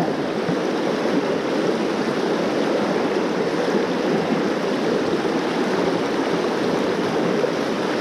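Mountain stream rushing over rocks through a shallow riffle: a steady wash of white water.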